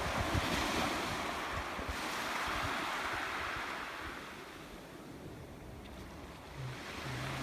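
Sea surf washing onto the beach, swelling over the first few seconds and then fading away, with some wind buffeting the microphone.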